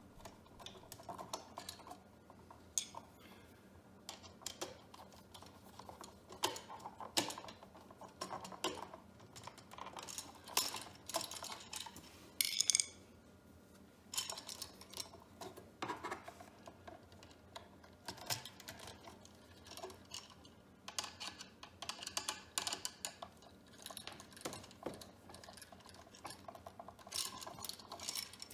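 Irregular small clicks, taps and light metallic clinks and scrapes from handling a new electrical outlet and its wires as they are fastened to the terminal screws.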